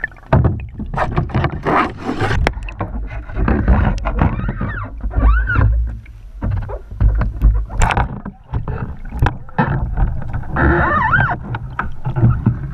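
Water sloshing, gurgling and splashing around a kayak-mounted action camera as it dips under the surface and comes out again, with irregular knocks and a low rumble of water against the housing.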